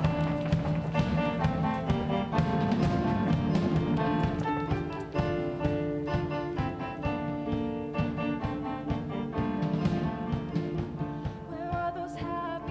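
Live band of piano, drum kit, electric guitar and bass playing an up-tempo instrumental passage with a steady drum beat.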